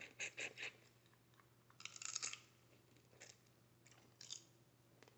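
Crab shell crackling and snapping as it is broken apart by hand, in a few short bursts: three quick cracks at the start, a longer crunch about two seconds in, and more a second or two later.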